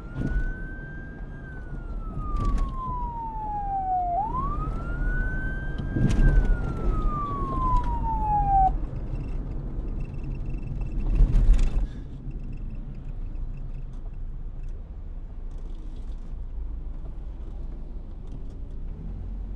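Police siren in wail mode: two slow cycles, each rising quickly to a high pitch and then falling slowly, stopping about nine seconds in. A low rumbling background runs underneath, with a brief louder swell about eleven seconds in.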